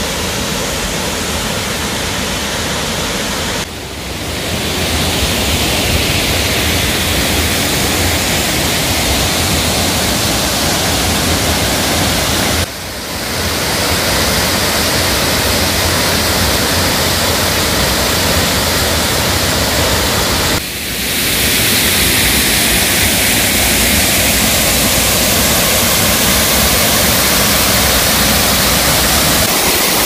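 Waterfall: a steady, loud rush of falling water. It drops away briefly three times, about four, thirteen and twenty-one seconds in, and each time comes back louder, the rush growing fuller and brighter.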